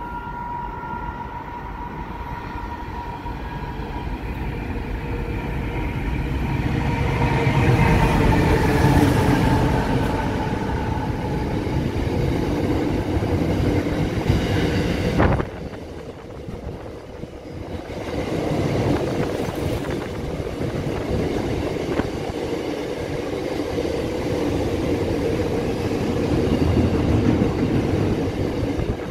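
Diesel freight locomotive approaching and running past close by, its engine sound building to a peak about eight seconds in, with its pitch sliding downward as it goes by. Loaded container wagons then roll past with steady wheel-on-rail noise and light clickety-clack, broken by a sharp click about fifteen seconds in.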